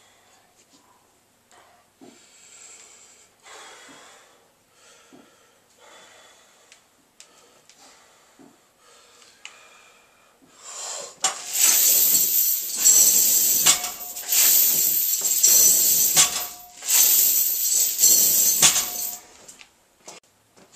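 Heavy breathing, then three quick deadlift reps with chains hung on a loaded barbell: the chains rattle and jangle loudly through each pull and lowering, and each rep ends with a knock and brief ring of the plates touching down.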